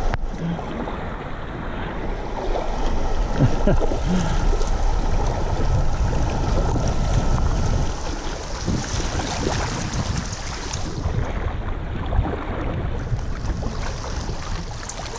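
River water rushing and splashing around a kayak running small riffles, with wind buffeting the microphone.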